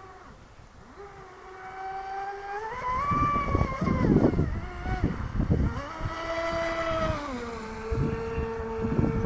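Stock Oxidean Dominator RC boat's motor whining as the throttle is worked. The pitch climbs about two to three seconds in, drops near four seconds, climbs again around six to seven seconds, then settles lower and steady. A rough rushing noise runs under the louder middle stretch.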